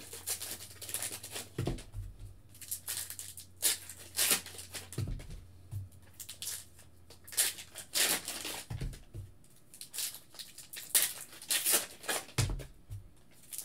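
Foil Upper Deck Trilogy hockey-card pack being torn open and crinkled by hand, with cards rustled and set down on a table in a few dull thumps.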